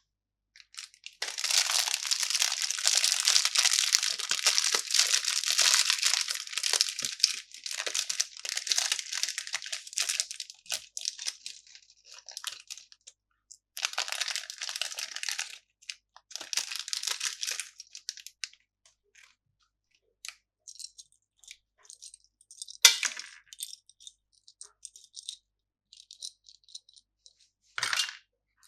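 Candy packaging crinkling and tearing in long bursts, then scattered small clicks and taps, with a sharp snap about 23 seconds in and another near the end.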